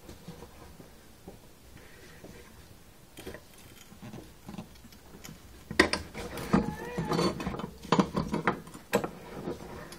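Metal clinking, knocking and scraping as motorcycle exhaust parts are worked by hand while baffles are fitted into the cans. Faint at first, then a busy run of sharp clicks and squeaky scrapes from about halfway through.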